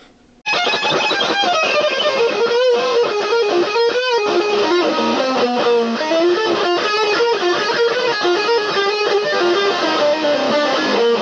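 Electric guitar playing a continuous run of quickly changing single notes, starting abruptly about half a second in.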